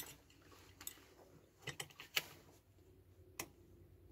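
Metal spring-loaded PCB holder clicking and clacking as a copper-clad circuit board is pushed into its sliding jaw and clamped: a handful of light, separate clicks and knocks, the sharpest a little over two seconds in.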